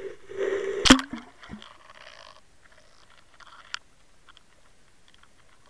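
Underwater camera housing on a fishing line: a steady hum stops with one loud knock about a second in, followed by two softer knocks and then faint scattered ticks and scrapes.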